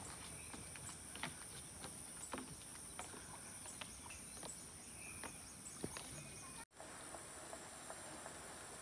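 Faint outdoor ambience of insects droning steadily at a high pitch, with scattered soft ticks and taps. The sound drops out for an instant about two-thirds of the way through.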